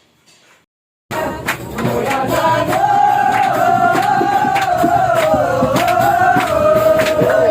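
Music with a sustained, wavering singing voice over a percussive beat, starting suddenly about a second in.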